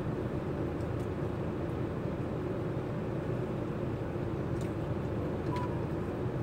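Steady low rumble and hum of an idling vehicle with its air conditioning running, heard inside the cab, with a few faint clicks.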